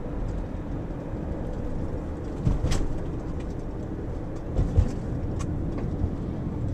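Steady low rumble of a car's engine and tyres heard inside the moving car, with a couple of brief thumps about two and a half and four and a half seconds in.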